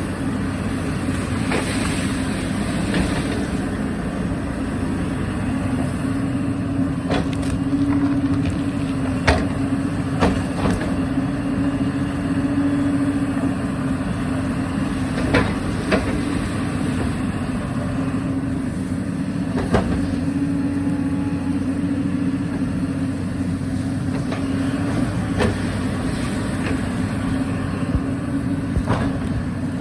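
Excavator's diesel engine running steadily under work, with sharp knocks and clanks every few seconds.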